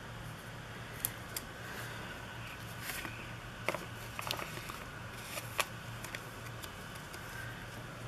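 Paper and planner stickers being handled on a desk: light rustling and about five small sharp clicks, over a steady low hum.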